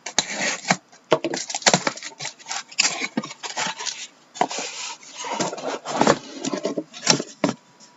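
Boxes of trading cards being handled and moved about on a table: an irregular run of knocks, taps, scrapes and rubbing of cardboard.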